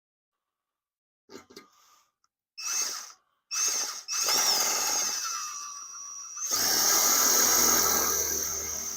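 Power drill run in a few short bursts, then held on for several seconds, driving a self-drilling Tek screw into steel exhaust tubing; its motor whine dips under load and picks up again.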